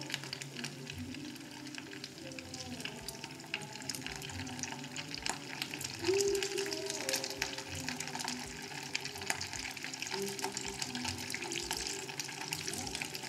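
Hot cooking oil sizzling and crackling steadily in a frying pan as lumpia-wrapped turon deep-fry.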